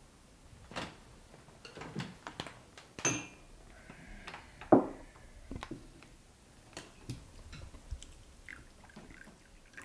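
Coffee being served: scattered clicks and knocks of crockery, a ringing clink of a cup about three seconds in, and a heavier knock a little before the five-second mark.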